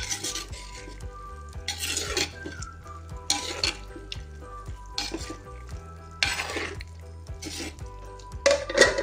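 A spoon stirring thick pork curry in an earthen clay pot, with about six scraping strokes roughly every one and a half seconds.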